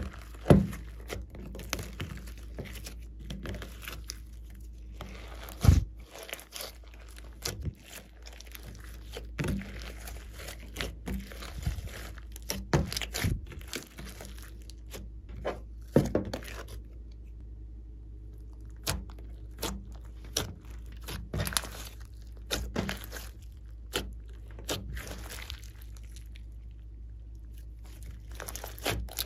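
Hands squeezing, kneading and stretching glossy slime mixed with clay and glitter, with irregular sticky squelches and sharp pops as air pockets burst. A faint steady low hum lies underneath.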